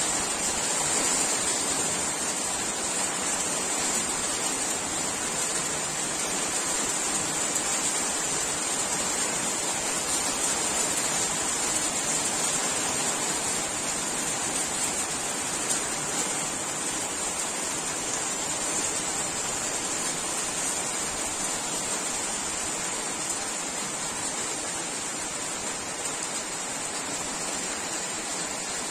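Steady rain falling, a continuous even hiss with no break.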